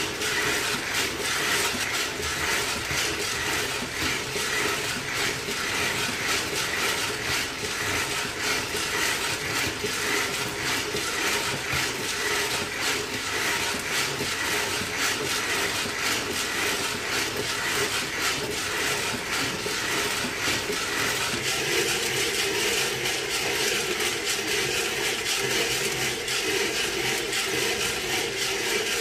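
Coffee beans tumbling and rattling inside a hand-cranked stainless-steel drum roaster as it turns over a gas flame during roasting: a steady, dense patter of small clicks.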